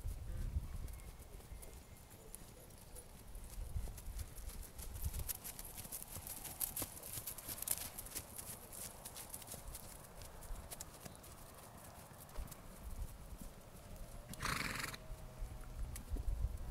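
Morgan/Welsh pony mare's hoofbeats thudding on turf as she trots and canters under a rider. About three-quarters of the way through, a horse whinnies briefly.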